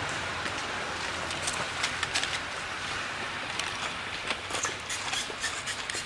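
Steady outdoor background noise with scattered light clicks and crackles throughout.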